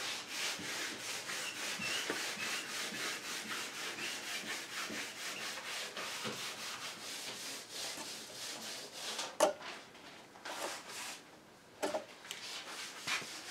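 Light, quick rubbing and scraping strokes, several a second, as epoxy putty is pressed and smoothed into a broken mahogany table leg with a thin blade and fingers. The strokes ease off near the end, broken by a couple of short sharp taps.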